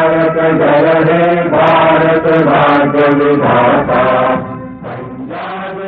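Loud chanting over a public address, a sustained melodic recitation like a mantra, which drops to a quieter level about four and a half seconds in.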